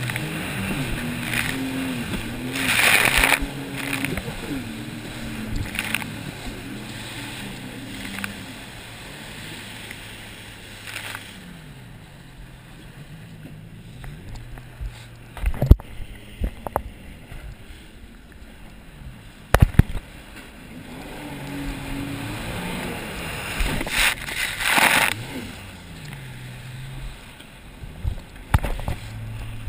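Sea-Doo personal watercraft engine running on open water, its pitch rising and falling as the throttle is worked, with spray hissing off the hull. The engine eases off and runs lower in the middle before picking up again near the end, and a few sharp knocks come in the quieter stretch.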